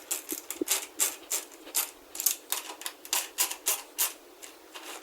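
Socket ratchet clicking through repeated back-strokes, a quick series of sharp clicks a few per second, as it tightens a nylon lock nut onto a bolt.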